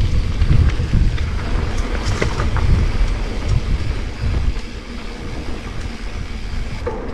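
Wind buffeting the microphone of a mountain bike rider on the move, with a heavy low rumble from the ride and a few sharp clicks and rattles about two seconds in. The rush eases a little after about four and a half seconds.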